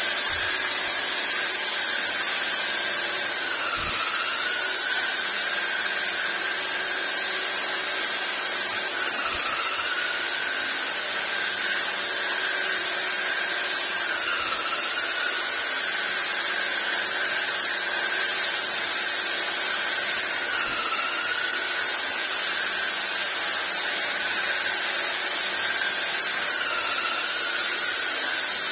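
Electric wall-paint sprayer running with a steady whine that dips briefly in pitch five times, about every five and a half seconds, each dip followed by a burst of high hiss.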